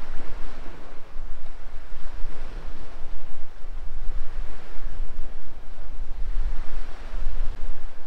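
Small sea waves washing on a rocky shore, the wash swelling and fading every couple of seconds, under a louder low rumble of wind buffeting the microphone.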